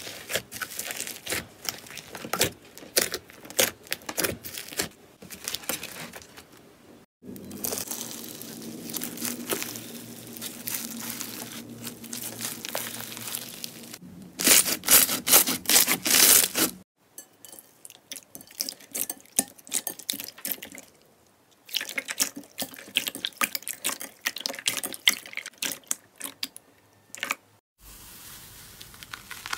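Slime being pressed and kneaded by hand, with dense crackling and popping clicks and wet squishing. The sound stops briefly about 7, 17 and 28 seconds in, and the crackling is loudest from about 14 to 17 seconds in, when the slime is a clear slime packed with small beads.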